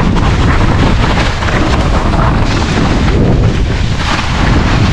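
Heavy wind buffeting the microphone, a dense low rumble with constant irregular thumps.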